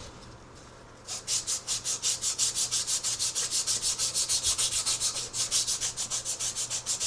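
Sandpaper rubbed by hand in quick back-and-forth strokes, about five a second, on the steel shaft of a Briggs & Stratton engine. The rust is being smoothed off so the bearing will pull off. The sanding starts about a second in.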